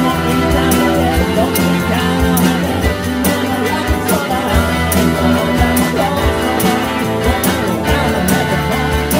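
Instrumental passage of a rock band song with no singing: electric guitar and keyboard over a steady drum beat.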